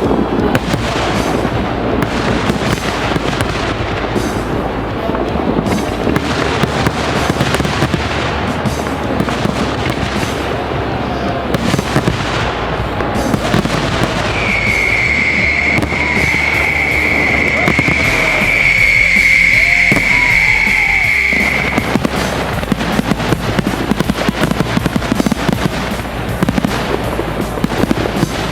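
Fireworks display: continuous crackling and banging, with a long steady high-pitched whistle lasting about seven seconds midway through.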